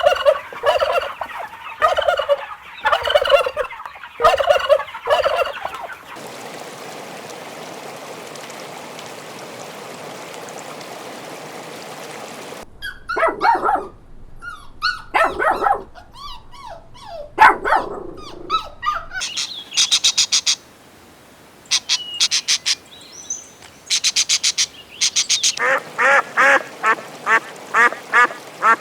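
Farmyard poultry calling in a run of separate short clips, with a stretch of steady background noise and no calls in between. Near the end, rapid repeated quacking of ducks.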